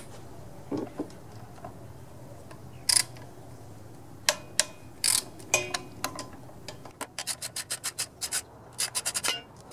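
Socket ratchet wrench turning bolts on a small mower engine, taking off the ignition coil (magneto). There are a few separate metal clinks of the tool at first, then a fast run of ratchet clicks, about six a second, near the end.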